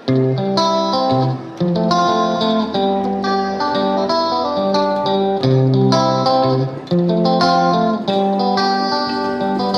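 Background music led by plucked guitar, a run of notes with a steady pulse.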